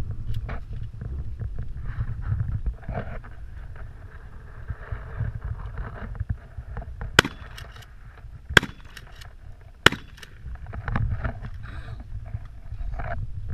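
Three pump-action shotgun shots a little over a second apart, over a low wind rumble on the microphone, with rustling and footsteps in the brush before and after.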